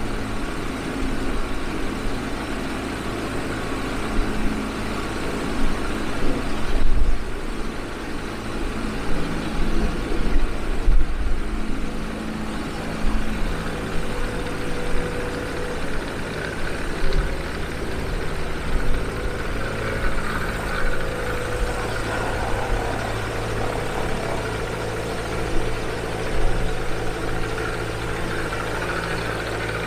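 Viking aircraft engine idling on its first start, driving the propeller, with a steady low running note. Its loudness swells briefly now and then, most in the first half.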